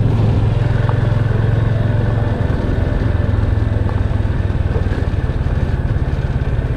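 Motorcycle engine running steadily while the bike is ridden along a gravel road, heard from the rider's seat as an even low hum.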